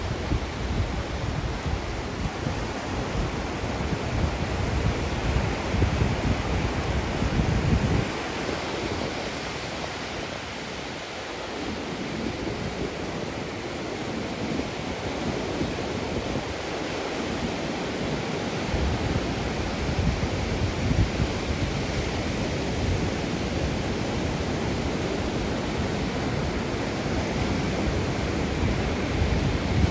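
Ocean waves washing on the shore in a steady wash of surf. Wind rumbles on the microphone, dropping away for about ten seconds in the middle and returning.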